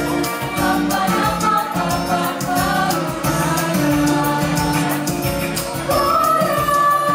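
Young mixed vocal ensemble singing a song together into stage microphones, over musical accompaniment with a regular beat. Near the end the voices settle onto one long held note.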